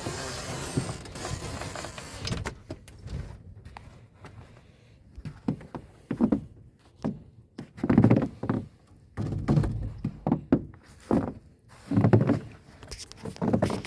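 A series of dull thumps and knocks, like wood or gear being handled, coming more often and louder in the second half.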